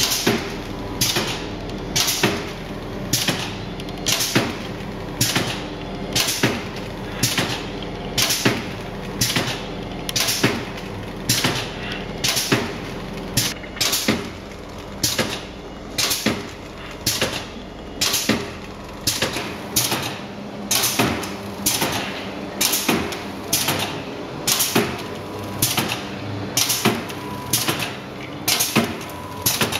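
GKS Minipack 150 sachet packaging machine with its Minifill dosing pump running, packing dressing: a sharp mechanical clack about once a second as it cycles through bags, over a steady machine hum.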